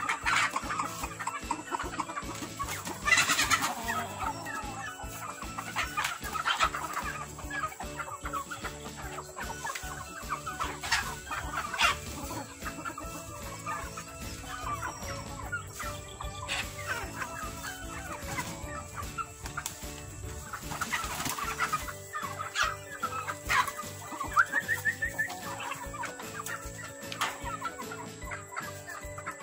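A flock of chickens, hens and roosters, clucking and calling throughout, with a few louder calls standing out.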